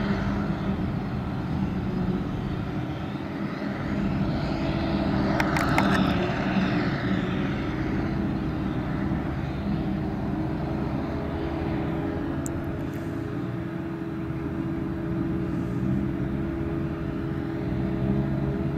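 Claas Jaguar 870 self-propelled forage harvester working, its engine and chopping gear making a steady drone as it chops grass and blows it into the trailer alongside, with the tractor pulling that trailer running at the same time. A brief cluster of clicks about six seconds in.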